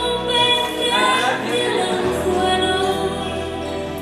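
A song plays: music with a woman's voice singing held notes.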